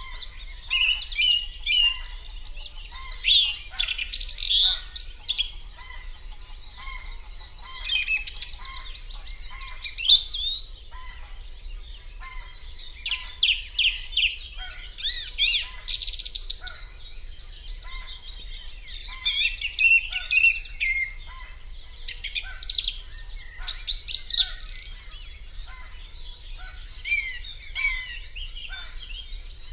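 Several songbirds singing over one another in a busy chorus, with quick high chirps and trills, and a softer, lower note repeating about once a second behind them.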